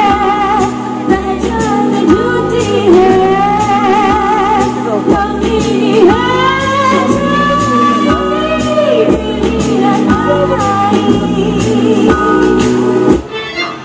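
Music with a singer over a steady beat, the melody line wavering with ornamented vibrato; it breaks off briefly just before the end.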